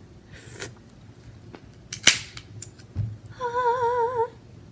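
Root beer can's pull tab snapping fully open with a single sharp pop and a short fizz, about two seconds in. Near the end comes a brief wavering hum from a voice.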